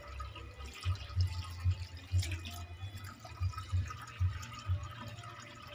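Water trickling and splashing into a glass aquarium tank with stones in it, with scattered small clicks and a low uneven throb underneath.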